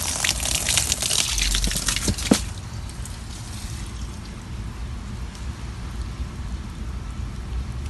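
Water splashing and pouring as a clogged air-conditioner condensate drain line is back-flushed with a garden hose, the water and loosened slime coming back out of the line. It splashes hard for about two and a half seconds, then eases to a softer, steady trickle.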